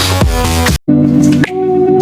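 Background music: an electronic dance track with a steady kick beat cuts off abruptly under a second in, and after a brief gap a different song with held notes begins.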